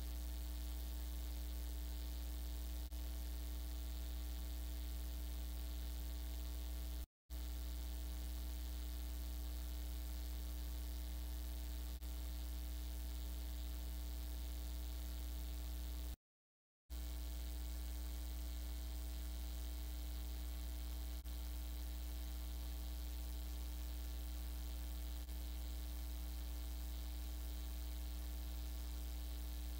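Steady electrical hum with a strong low drone and fixed overtones, with no game sounds, dropping out to dead silence twice, briefly.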